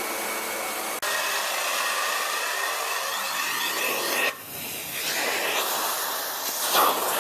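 Hotpoint Energy Power 4 bagless cylinder vacuum cleaner running with a steady suction rush. Its note shifts as the nozzle moves, with a brief dropout about a second in and a dip around four seconds in.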